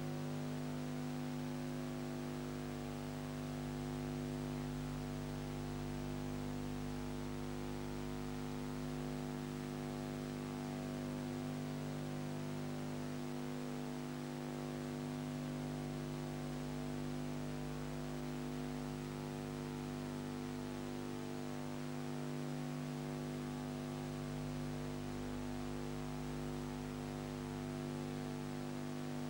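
Steady electrical hum with a constant hiss, several low tones held without change.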